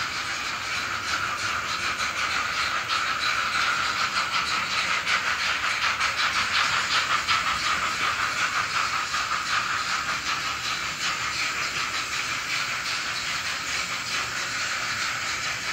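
Sound decoder of an Arnold N-scale model of the steam locomotive 41 001 playing its steam-engine sound through the model's small loudspeaker: a fast, hissing chuff that swells a little in the middle and eases off again.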